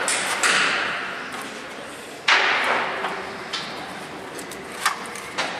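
Plastic shroud of a 2011 Ford Edge electric radiator fan assembly scraping and knocking against the surrounding parts as it is worked by hand into its place in front of the radiator. There is a loud scrape about two seconds in, and a few sharp knocks follow near the end.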